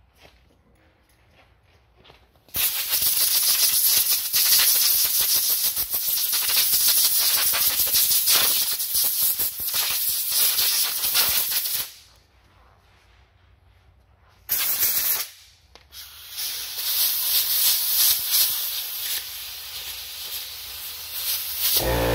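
Compressed-air blow gun hissing as it blows dust out of a small engine's air filter element. There is one long blast starting a couple of seconds in, a brief one after a pause, and then another long blast.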